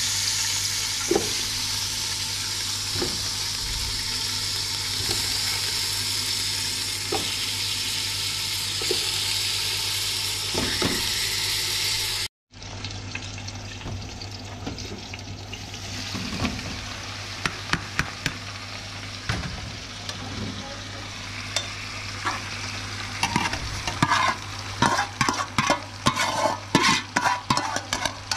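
Food sizzling steadily in a hot pan. After an abrupt cut about halfway, the sizzle is quieter and a utensil stirs and scrapes against the pan, the knocks coming thick and fast near the end.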